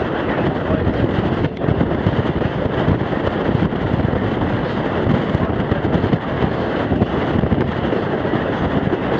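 Steam-hauled passenger train rolling along the track: a steady rumbling, rattling ride noise with wind buffeting the microphone.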